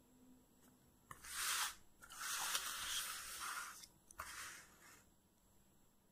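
Paper rustling and rubbing as a lined paper notebook is handled and shifted, in three bursts: a short one about a second in, a longer one lasting nearly two seconds, and a brief one just after four seconds.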